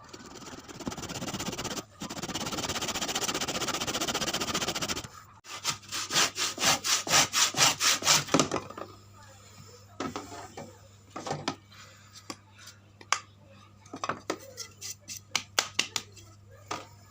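Wood being sawn by hand for a fish spear gun's pistol grip: a steady scraping cut for about five seconds, then quick even saw strokes, roughly three to four a second, for about three seconds. After that come scattered light knocks and taps of the wood being handled.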